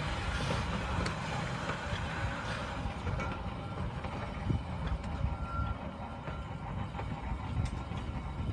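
Electric trolley car rolling along the tracks, a low rumble with scattered clicks from the wheels on the rails.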